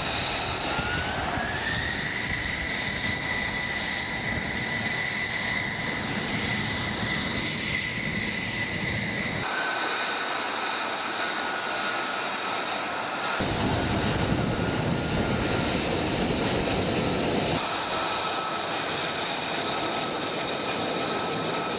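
Jet aircraft engine running with a steady rushing noise and a high whine that rises in pitch about a second in, broken by abrupt cuts between several shots.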